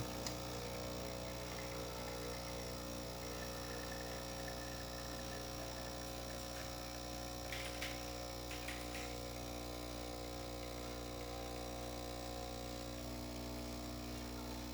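Breville Dual Boiler's vibratory pump humming steadily as it pulls a double espresso shot, cutting off suddenly at the end of the shot.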